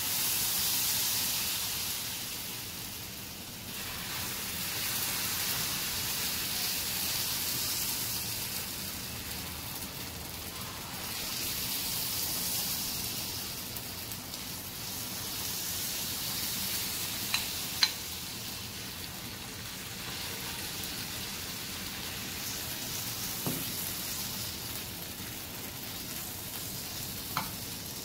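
Thin rava dosa batter sizzling on a hot tawa, a steady hiss that swells each time more batter is poured on from above. This batter hitting a hot griddle is what forms the dosa's lacy holes. A few light clicks sound about two-thirds of the way in and near the end.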